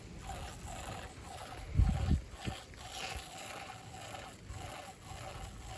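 Wind rumbling on the microphone, with a couple of heavy low thumps about two seconds in.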